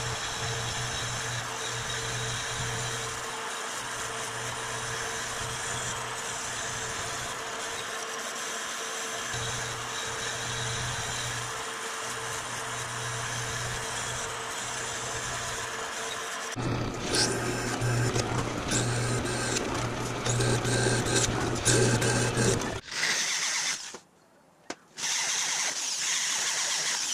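Vertical metal-cutting bandsaw running and cutting through the spring-steel disc of an old masonry saw blade, a steady hum that grows louder and rougher for several seconds. After a short break near the end, a handheld drill runs steadily as it bores through the steel steering-wheel blank.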